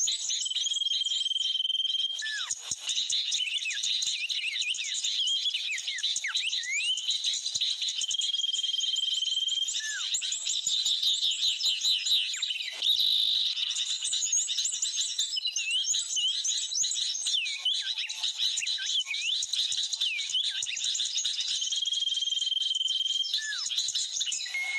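Bird-lure mp3 playing: a dense chatter of sooty-headed bulbul and small-bird calls, with quick chirps, falling notes and a high held whistle that comes back three times. Its purpose is to call in Sunda blue flycatchers to the glue sticks.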